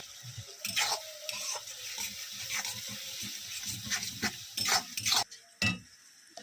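Metal utensil stirring and scraping in a cooking pan, with repeated clinks and scrapes over a steady frying hiss that drops away about five seconds in.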